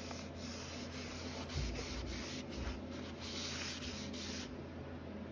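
A cloth rag wiping stain onto a live edge ash board in quick back-and-forth strokes, a rhythmic rubbing hiss that stops near the end.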